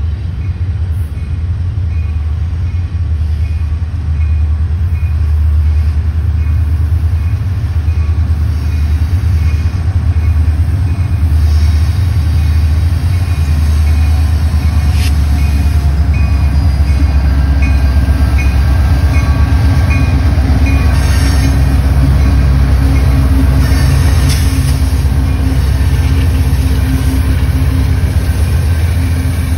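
Union Pacific diesel-electric locomotives pulling an intermodal freight train: a deep, steady engine rumble that grows louder over the first few seconds as the train nears, then holds.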